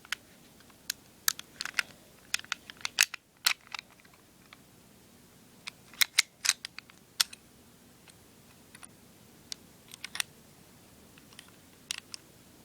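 Sharp, irregular clicks and taps of small metal and plastic airsoft M1911A1 pistol parts being handled and fitted together: the slide, recoil spring and guide rod. They come in short clusters, with quiet gaps between them.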